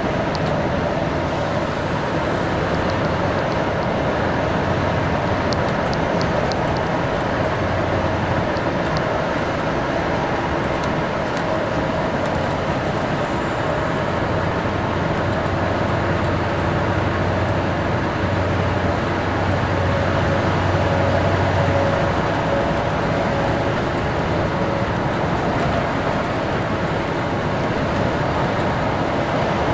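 Steady engine hum and tyre-on-road noise from a vehicle cruising along a paved road, heard from inside the cab, with the low engine note swelling slightly about two thirds of the way in.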